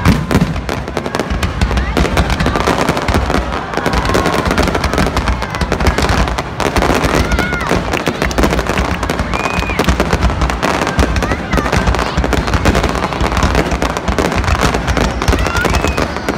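Fireworks display: a loud, dense, unbroken barrage of bangs and crackling from shells and comets going off in rapid succession.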